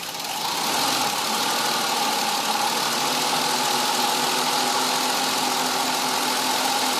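Ford Mondeo Mk3's 2.5-litre V6 engine idling warm, rising a little over the first second and then steady. It carries the strange idle noise that the owner traced to a ruptured air intake hose.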